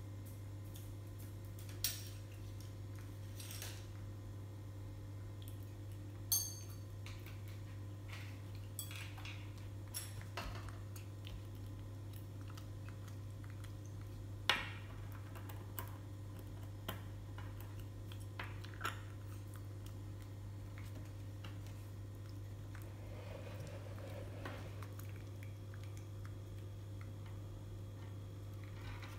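Stainless steel chopsticks and utensils clinking and rattling in a plastic cutlery basket as a baby monkey handles them, with a few sharper metal clinks. A steady low hum runs underneath.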